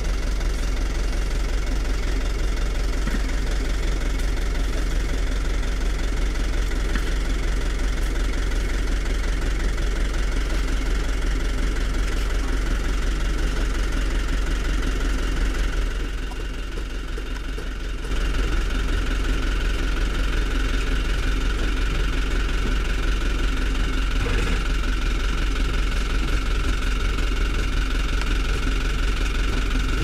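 Diesel engines of heavy road-paving machinery running steadily, with a deep low hum and a steady high tone over it; the sound drops briefly about sixteen seconds in, then returns.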